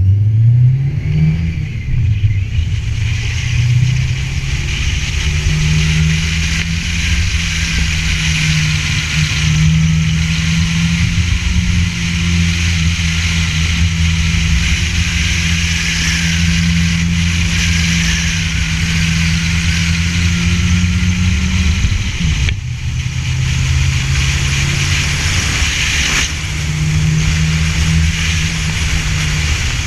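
Ford Festiva race car's engine running hard under load. Its pitch holds high, then drops sharply about two-thirds of the way through and carries on at a lower pitch.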